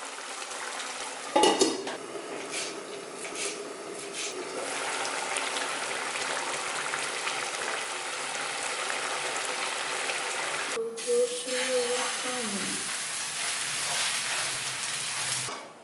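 Chicken curry sizzling in a pan after water has been added, with a spoon stirring and clinking against the pan. There is a sharp clatter about a second and a half in.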